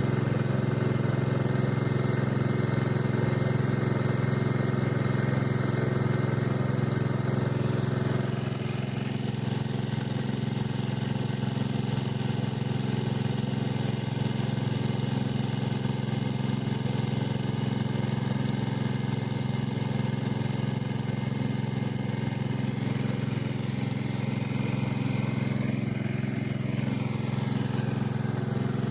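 Engine of a 3-inch engine-driven irrigation water pump running steadily, its level dropping slightly after about eight seconds.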